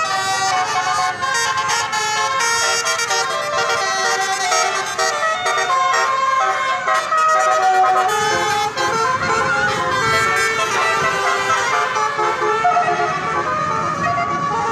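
Tour bus 'telolet' multi-trumpet musical air horn playing a fast melody, loud and continuous, its notes changing several times a second. A low rumble joins in about eight seconds in.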